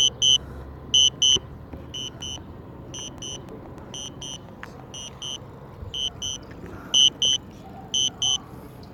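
DJI Spark flight-control warning beeping: short high double beeps repeating about once a second, the steady alert given while the drone is returning home.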